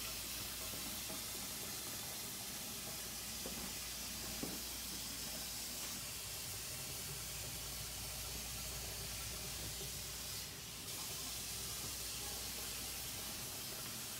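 Red fruit sauce boiling hard in a pan on a gas stove, a steady sizzling hiss that briefly drops away a little past ten seconds in.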